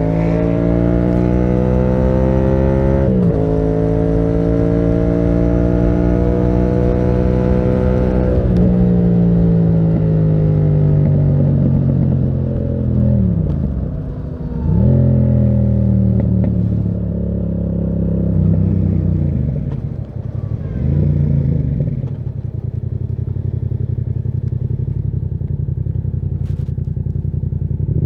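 Yamaha MT-07's parallel-twin engine through a Termignoni exhaust, accelerating with a gear change about three seconds in and pulling to higher revs before rolling off. The revs fall, dip and pick up again a few times, then settle to a steady low note in the last few seconds.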